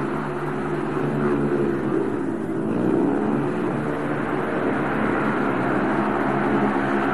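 Several speedway motorcycles racing, their single-cylinder 500 cc methanol engines running hard together in a dense, buzzing drone. About halfway through, the pitch dips and then climbs again as the riders go through a bend.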